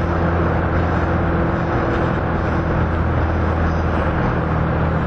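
A loud car driving through a road tunnel, heard from inside the cabin: a steady engine drone with road and tyre noise echoing off the tunnel walls.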